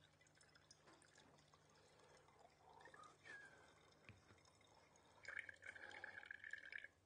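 Faint trickling and dripping of iron-vinegar ebonizing solution draining through a paper coffee filter in a funnel into a bottle, louder for a couple of seconds near the end.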